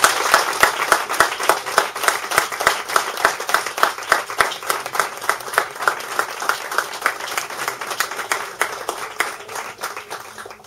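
Audience applauding, dense hand clapping that gradually dies away near the end.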